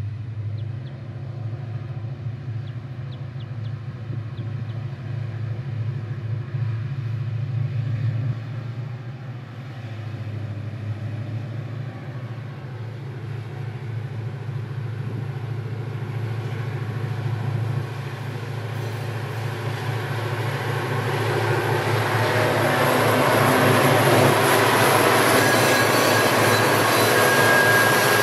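Grain train's diesel locomotive running with a steady deep hum. From about two-thirds of the way through, the sound grows louder as the train draws near, filling with the rushing noise of wheels on the rails.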